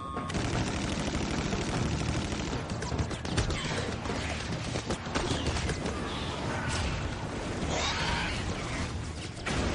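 Film sound effects of a dense, sustained fusillade of gunfire with crashes and impacts mixed in.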